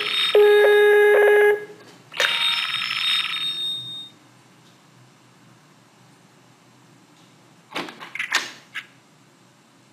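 Skype incoming-call ringtone on a smartphone: two ringing bursts in the first four seconds, then it stops as the call is answered. A few short clicks near the end.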